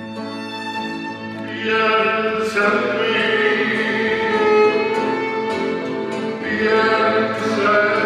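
A man singing, accompanied by a violin and two nylon-string classical guitars; the music grows louder about two seconds in.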